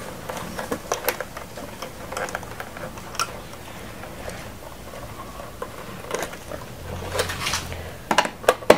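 Small clicks and light scrapes of a wire being handled and pushed into the screw terminal of a DIN-rail timer relay, then a screwdriver working the terminal screw. There is a quick cluster of sharper clicks near the end.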